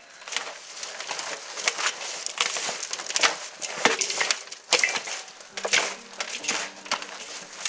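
Rubber-gloved hands tossing and mixing chopped mustard greens, shredded carrot and chili powder in a large stainless steel basin: irregular rustling and crunching strokes. A steady low tone comes in about two-thirds of the way through.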